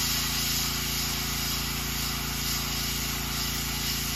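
Airbrush spraying paint with the trigger held down: a steady, even hiss of air and paint, over a steady low hum.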